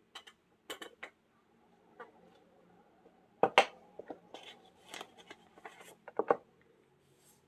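Gloved hands moving things about on a craft table and picking up a sheet of printing paper. Scattered light clicks and knocks, the loudest about three and a half and six seconds in, with paper rustling between them, over a faint steady hum.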